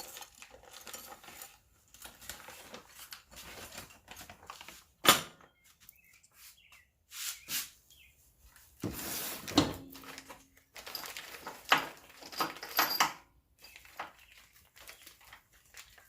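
Hand-handled suspension hardware: scattered clinks, knocks and rustles as coilover spacers and parts are picked out and moved about, with one sharp knock about five seconds in and a busier stretch of clatter near the end.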